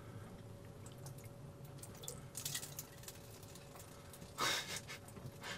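Faint handling noises of a flashlight being fished out of a boat's bilge: soft rustles and light knocks, with one short louder scrape about four and a half seconds in, over a faint steady hum.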